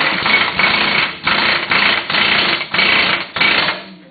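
Impact wrench hammering in about seven short bursts, typical of running wheel lug nuts on, stopping just before the end.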